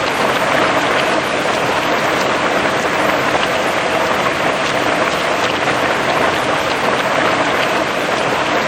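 Heavy rain falling steadily on grass and trees, a dense even patter with scattered individual drops.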